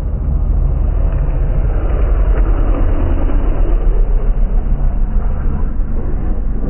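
Aprilia Tuono V4 prototype's V4 engine running at steady revs on the straight, a low rumble that grows gradually louder as the bike approaches.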